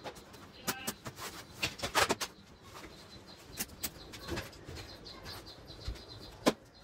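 Knocks and clicks from a large flat-screen TV's plastic back being handled and lifted, with a cluster of knocks about two seconds in and one sharp, loud knock near the end.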